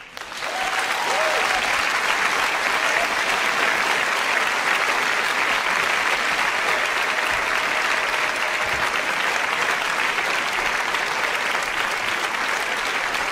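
A large audience applauding steadily; the clapping comes up within the first half second and holds at an even level throughout.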